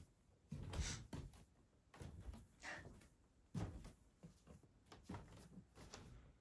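Faint footsteps going down wooden stairs and onto tatami: a few soft thuds and scuffs at uneven intervals, the heaviest about three and a half seconds in.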